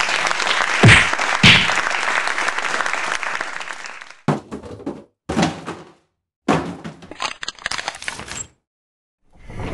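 Applause-like noise hit by two heavy thuds about a second in, then fading away. After that come three short, sharp bursts of noise with silence between them.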